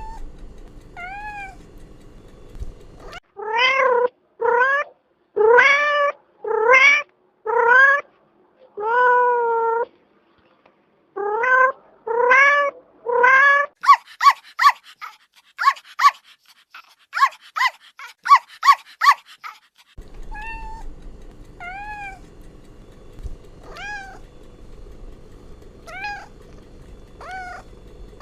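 Cats meowing over and over: a few faint meows, then about ten loud drawn-out meows, then a quick run of short, high-pitched mews. Faint spaced meows over a low hum follow near the end.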